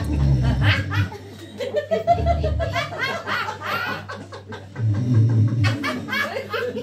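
Small audience laughing in repeated bursts over acoustic guitar, with low guitar notes near the start, about two seconds in and about five seconds in.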